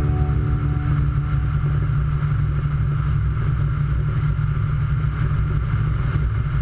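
Light aircraft engine running steadily, a constant low drone with a higher hum above it, as heard during a flight. The last notes of music fade out in the first half second.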